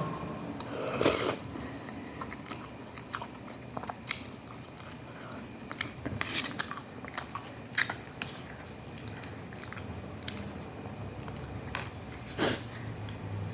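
Close-up eating of instant cup noodles with meatballs and cabbage: chewing and mouth sounds with scattered small smacks and clicks, two louder ones about a second in and near the end.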